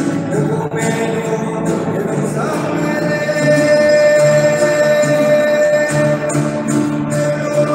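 A man singing a slow hymn to a strummed nylon-string acoustic guitar, holding long notes.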